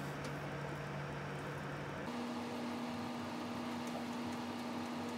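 Combination microwave-convection oven running on convection bake at 200 °C: a steady fan-and-motor hum, whose low tone shifts higher about two seconds in.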